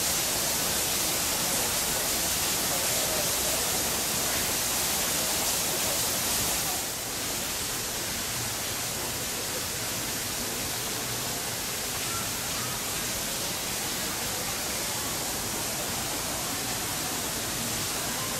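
Steady rush of falling water, a little softer from about seven seconds in.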